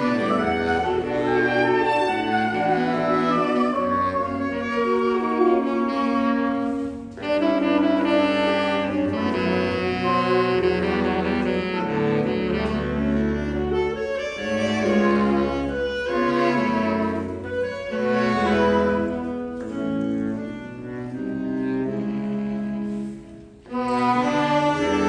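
Saxophone and trumpet quartet playing live, three saxophones and a trumpet sounding held notes in harmony. The music breaks briefly between phrases about seven seconds in and again near the end.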